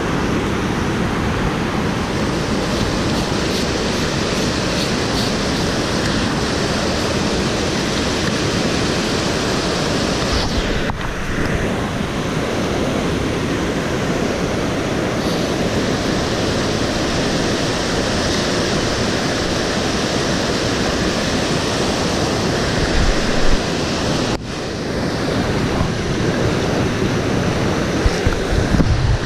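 Whitewater river rapids rushing steadily over boulders close by.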